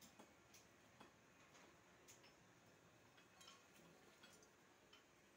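Faint, irregular light clicks and taps, about one or two a second, over near silence: small handling noises of a spoon and cell caps being worked on the top of a lead-acid battery.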